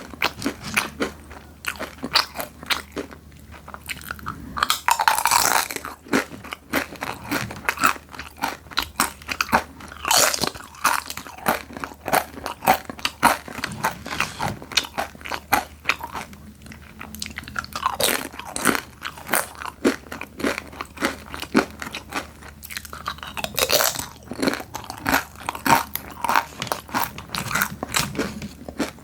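Close-miked biting and chewing of hard, crispy snacks: dense, sharp crunching that comes in bursts, with bigger bites every few seconds.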